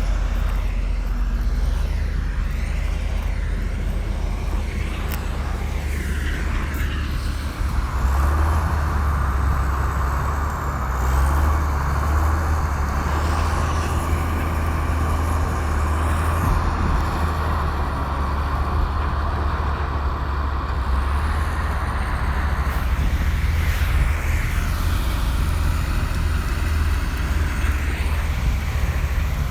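Komatsu bulldozer's diesel engine running hard with a deep steady drone; from about eight seconds in to about twenty-three seconds a harsher higher-pitched noise rises over it as the machine works under heavier load.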